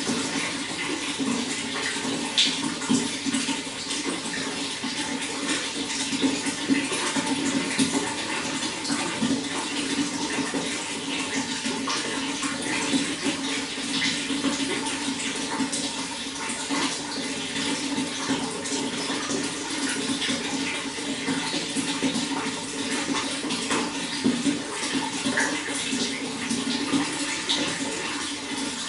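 Running water flowing steadily: an even rush with small splashes scattered through it.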